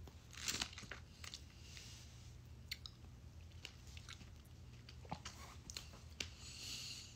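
A bite into a fresh strawberry, loudest about half a second in, then soft chewing with small wet mouth clicks and a short hiss near the end.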